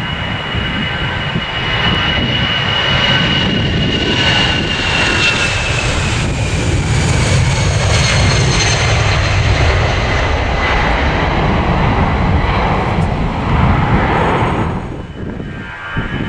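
Airbus A319-111's CFM56 turbofan jet engines at take-off power as the airliner rolls and lifts off close by: a high fan whine that slowly falls in pitch as it passes, over a deep rumble. The sound grows over the first few seconds and drops away abruptly near the end.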